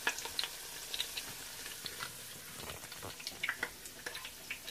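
Egg rolls frying in a pan of hot oil: a steady sizzle with scattered crackling pops.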